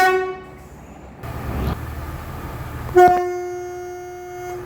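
A train horn sounds one steady, single-pitched blast of about a second and a half. It starts suddenly about three seconds in and cuts off sharply. At the very start the tail of an earlier blast on the same pitch dies away.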